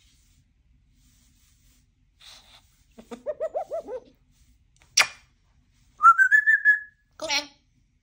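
African grey parrot vocalising: a quick run of wavering, warbling calls about three seconds in, a sharp click, then a whistle that rises and holds for about a second, and a short harsher call near the end.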